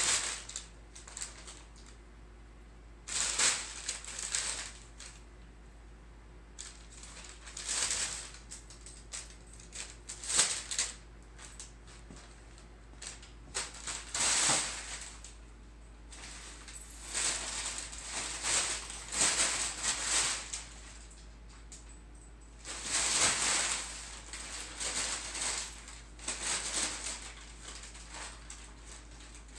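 Brown kraft packing paper crinkling and rustling in irregular bursts, some lasting a second or two, as cats pounce, scramble and burrow in it.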